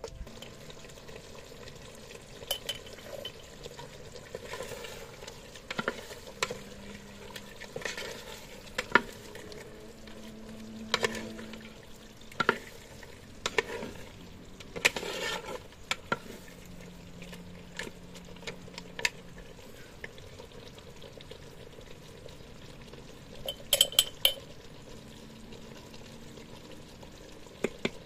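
A long-handled ladle stirring and scraping thick caldereta in a clay pot, knocking irregularly against the pot's sides, with a quick run of knocks near the end. The sauce simmers and sizzles underneath as it is cooked down to thicken.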